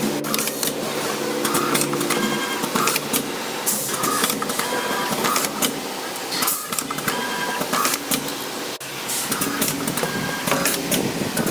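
Automatic stator winding machine running, laying enamelled copper wire into a motor stator: continuous mechanical whirring and clatter with short high tones repeating about once a second.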